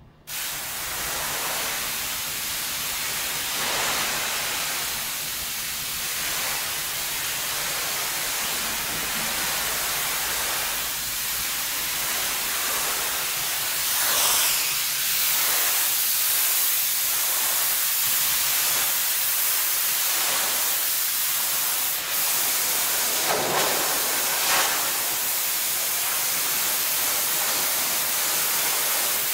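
Pressure washer wand blasting a high-pressure water jet: a loud, steady hiss that cuts in abruptly at the start, swelling slightly now and then as the spray is swept across surfaces.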